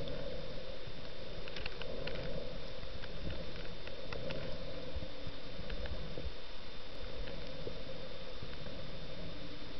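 Steady underwater noise picked up through a camera's waterproof housing, with scattered faint clicks and crackles and a thin steady high whine.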